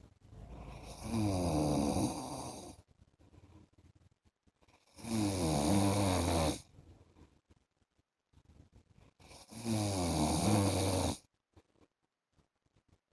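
A man snoring: three long snores about four and a half seconds apart, with quiet breaths between.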